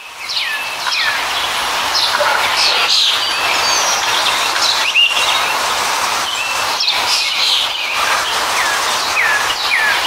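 Several birds chirping in short, repeated calls, many of them quick falling notes, over a steady background hiss.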